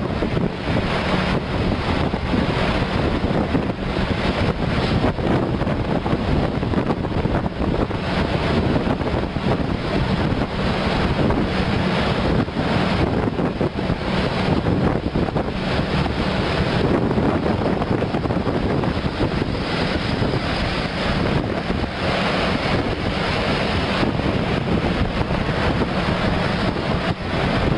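Wind buffeting the microphone of a moving vehicle over steady road and traffic noise, with a steady low hum underneath.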